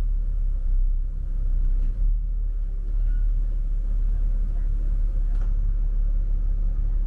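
Low, steady rumble of a double-decker bus's engine, with road traffic around it.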